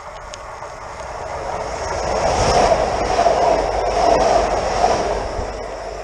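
Electric commuter train passing along the track, its rumble and wheel noise swelling from about a second in, loudest through the middle and fading near the end, with no horn sounded.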